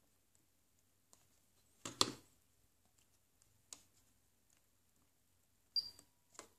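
A few faint, separate clicks of push buttons being pressed on a Pioneer Carrozzeria FH-P80M car stereo head unit, the loudest about two seconds in and two more near the end as the unit is switched to its AUX input.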